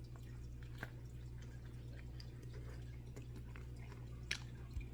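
A man chewing a bite of a bacon hot dog, with soft mouth clicks and a sharper click near the end, over a steady low hum.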